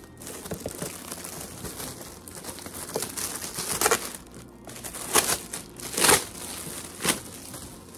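Gift wrapping crinkling and rustling as it is handled and opened, with louder crinkles about once a second in the second half.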